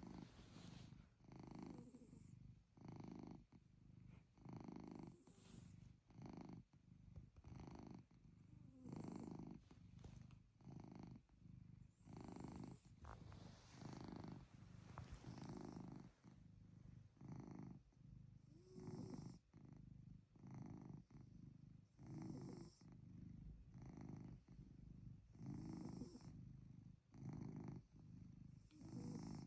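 Domestic cat purring, a faint low rumble in even pulses, a little over one a second, swelling and dipping with each breath in and out.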